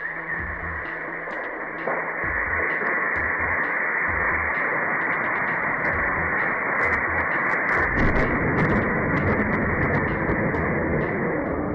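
Electrical arc at the top of a power pole, a steady harsh hiss with many sharp crackles, growing rougher and louder about eight seconds in; a monkey in contact with the live line is shorting it.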